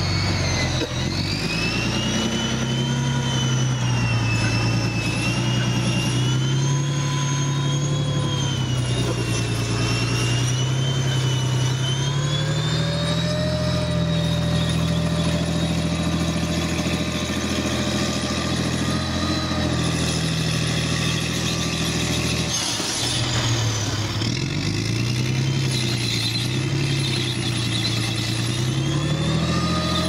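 Challenger armoured repair and recovery vehicle driving past, its V12 diesel engine running under load with the pitch rising and falling as the revs change, over a high whine that glides along with it. The sound breaks off briefly and picks up again about three quarters of the way through.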